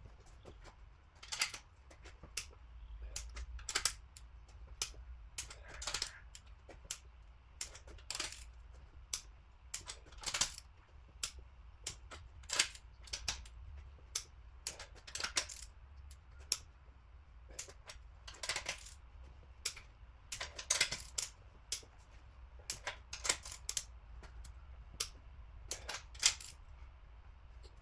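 Sharp metallic clicks and clinks of hand tools on metal, irregular, about one or two a second with some quick clusters, as the cylinder head bolts are tightened.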